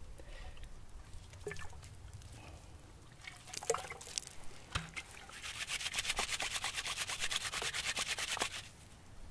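A bundle of shredded yucca leaf fibre handled and then rubbed briskly between the hands to work it up as soap: scattered crackles and rustles at first, then about five and a half seconds in a fast, even, scratchy rubbing that stops shortly before the end.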